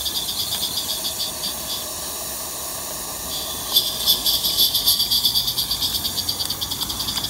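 16mm-scale Roundhouse Double Fairlie live-steam locomotive running with quick, even exhaust chuffs over a steam hiss. The beats fade for a moment around the middle, then come back louder.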